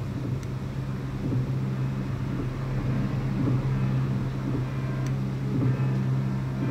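Vinyl record playing through an Ortofon phono cartridge: a steady low droning hum with light surface noise and a few faint clicks. Faint higher tones creep in near the end.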